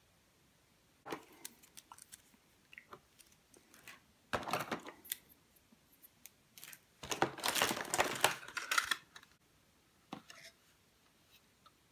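Hands handling small plastic parts and a moulded plastic packaging tray: scattered clicks and taps, with a short burst of rustling and scraping about four seconds in and a longer one from about seven to nine seconds.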